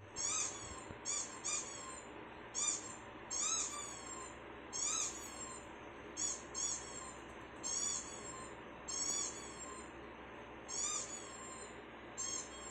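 Small dog whining: a series of short, high-pitched cries, each rising and then falling, repeated about fifteen times, some in quick pairs.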